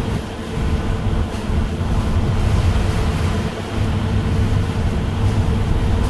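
Cabin running noise of a moving MAN EcoCity natural-gas bus: a steady low rumble from the engine and drivetrain, with a constant hum and the hiss of tyres on a wet road.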